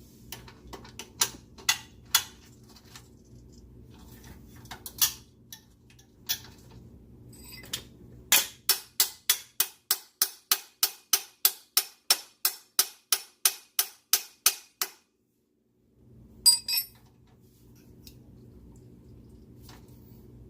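Hand tools clicking and tapping on metal: scattered sharp clicks, then a run of about two dozen even taps, about three and a half a second, that stops abruptly, and a brief clatter near the end.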